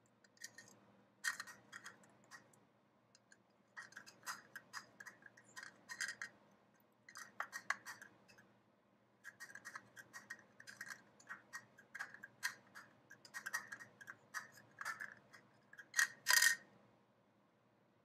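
Plastic cup scraping and clattering on a granite countertop as an African grey parrot pushes and bites at it with its beak: irregular flurries of clicks and scrapes with short pauses between them, the loudest about sixteen seconds in.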